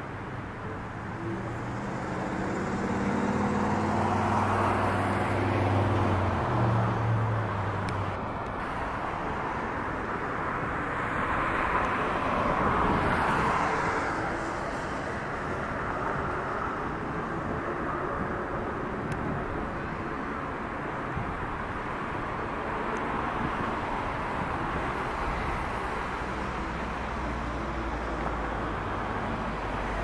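Road traffic: cars passing one after another, a steady rush of tyre and engine noise. The first swells with a low engine drone over the first several seconds, and another passes about halfway through.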